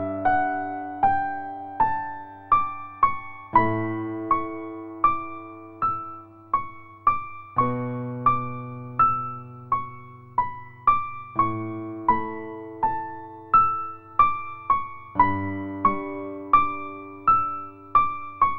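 Gentle background music: a slow keyboard melody of single struck notes, roughly one to two a second, each ringing and fading over low sustained chords that change every few seconds.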